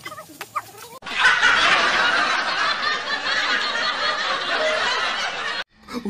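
Many people laughing together, a dense laugh track that starts abruptly about a second in and cuts off sharply near the end.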